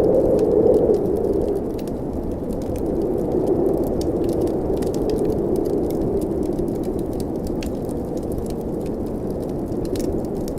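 Blizzard wind blowing steadily in a low, surging rush, easing slightly about a second and a half in, with a wood fire crackling and popping in quick, scattered clicks over it.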